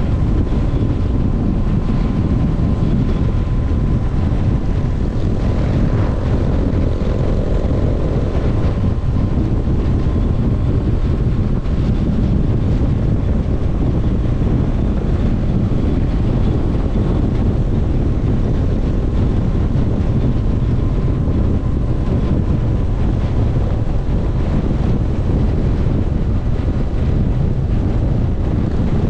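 Steady wind rush on the microphone of a motorcycle riding at road speed, with a faint steady whine underneath.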